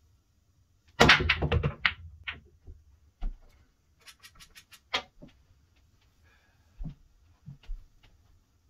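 Pool break in 9-ball: about a second in, the cue ball smashes into the rack with a sharp clack, followed by a fast burst of ball-on-ball clacks and cushion knocks lasting about a second. Scattered clicks and knocks follow as the balls bounce off the rails and settle.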